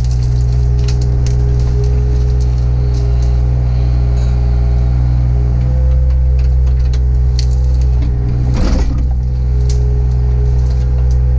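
Mini excavator's engine running steadily under load, heard from inside the cab, with scattered sharp cracks as the bucket works through brush. A brief louder rushing noise comes about eight and a half seconds in.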